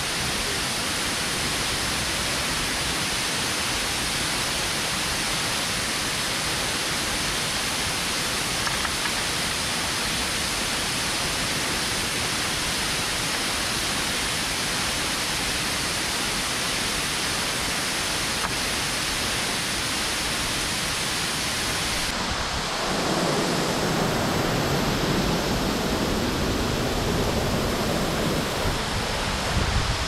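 Steady rushing roar of a tall waterfall, about 120 metres high, heard close to its foot. About two-thirds of the way through, the roar grows louder and deeper.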